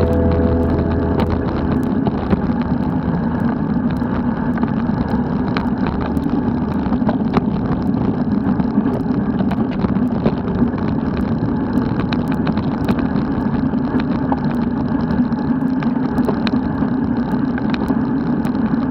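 Steady rumble of wind and road noise from a bicycle on the move, with scattered small clicks and knocks.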